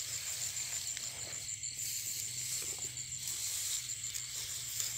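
Night-time insects, likely crickets, chirping in a steady high pulsing trill, over a low steady hum.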